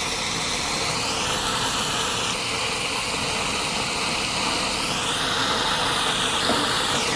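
Fajita meat sizzling on a portable propane gas grill, with fat flaring up in the flames: a steady, even hiss.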